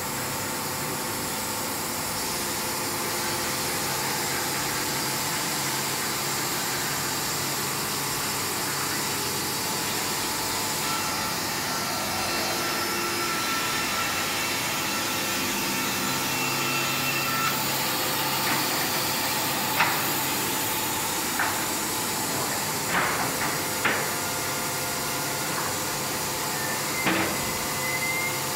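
Wood-Mizer WM3500 industrial band sawmill running steadily with a hissing machine noise while a log is sawn. In the second half, a series of sharp knocks and clanks rise above it as the timber is handled on the steel deck.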